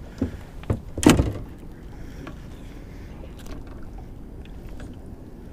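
Knocks and a louder thump about a second in as a freshly landed channel catfish is handled aboard a small fishing boat, followed by a low steady rush of wind and water.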